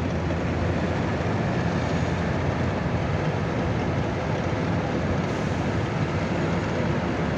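Heavy military truck tractors with low-loader trailers driving past, a steady low diesel engine drone with road noise.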